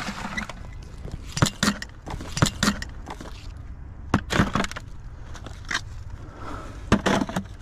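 Rusty scrap metal and chain pulled from a creek clanking and jingling as it is gathered up, a string of irregular sharp knocks.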